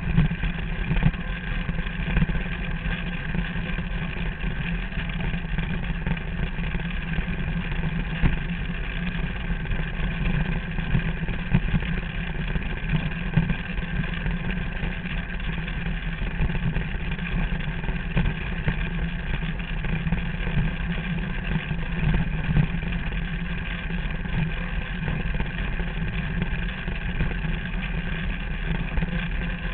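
Derny's small motor running at a steady, even speed with no change in pitch.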